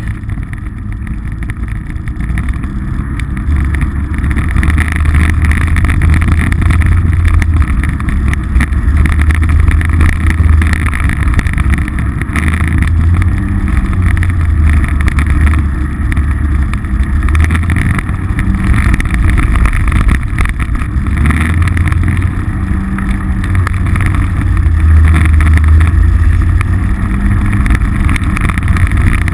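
Polaris RZR side-by-side's engine running under way: a loud, low drone that rises and falls, getting louder about four seconds in.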